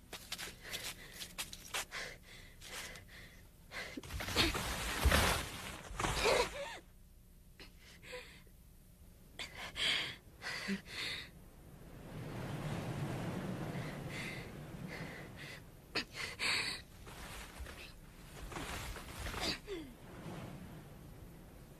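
A girl's gasps and strained breaths, a series of short breathy sounds with a few louder ones, amid scattered short noises.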